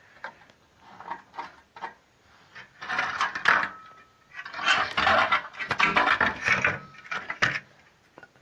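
Irregular clinking and clattering of metal pieces being handled and knocked together, with a brief ringing note twice.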